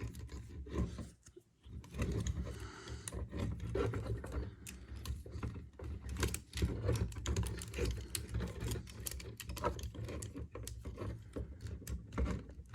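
Plastic parts of a Transformers Masterpiece MPM-11 Ratchet figure clicking and rattling as it is handled and its arms are adjusted, with many small irregular clicks and a brief lull about a second in.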